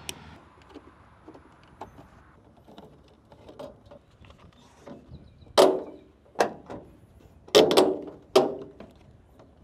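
Plastic tail light housing being seated on a pickup's bed by hand: light clicks and handling noise, then about six hard knocks in the second half as a palm smacks and presses it into place.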